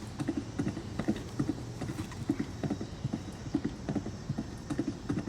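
Clip-clop of horses' hooves at a gallop, a steady beat of about three hoof strikes a second.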